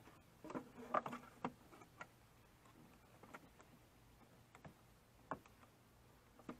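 Faint, scattered clicks and light knocks of hands working parts in a jon boat's rear compartment. There are several in the first two seconds, then a few single ones spaced a second or so apart.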